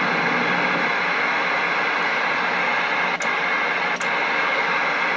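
Steady hiss of static from a Galaxy CB radio's speaker while it receives with no one talking, with a couple of faint clicks about three and four seconds in.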